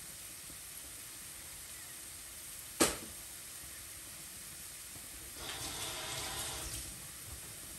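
Onion, celery and garlic sizzling faintly in olive oil in a pan. A single sharp click about three seconds in, and a louder rushing noise for about a second and a half near the end.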